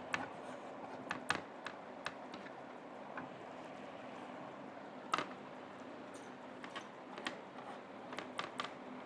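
Eating sounds over a steady background hum: irregular sharp smacks and clicks of chewing and of food being handled, the loudest about a second in and about five seconds in, with a quick run of them near the end.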